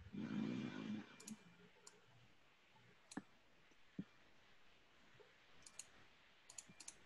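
Faint computer mouse clicks, scattered and irregular, about a dozen, as someone draws on a digital canvas. A brief muffled noise in the first second is the loudest part.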